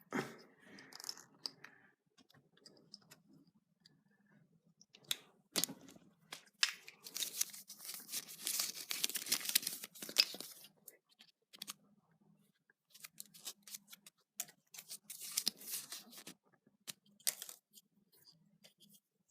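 Small Kinder Surprise packaging being handled: scattered clicks, then a long stretch of crinkling and tearing about seven seconds in, and a shorter burst of crinkling later.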